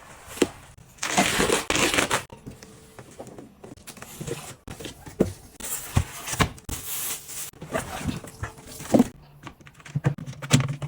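Packaging being handled: crinkling and rustling in irregular stretches, loudest about a second in and again around six seconds, with scattered clicks and knocks.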